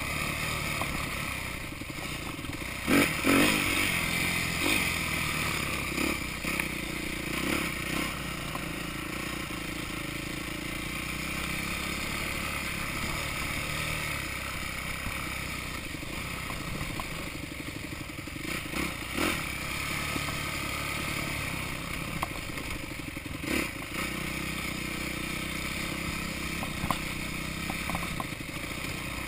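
Yamaha YZ250F four-stroke single-cylinder dirt bike engine running under changing throttle on a rough trail, with clattering knocks from the bike over bumps; the loudest knock comes about three seconds in.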